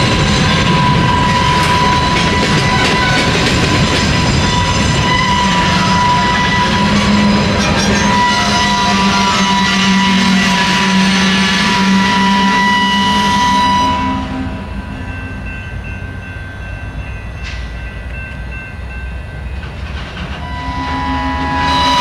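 A string of covered hopper cars rolling slowly past on the rails, wheels clattering and grinding, with steady high-pitched tones over the noise. It drops noticeably quieter about fourteen seconds in, then rises again near the end.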